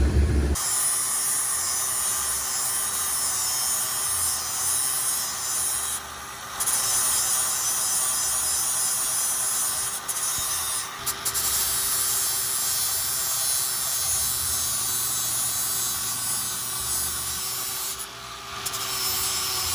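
Angle grinder running steadily while grinding down a weld bead on steel, a continuous grinding hiss over the motor's hum. It eases off briefly a few times, as if the disc lifts from the metal, about 6 s in, around 10–11 s and near 18 s.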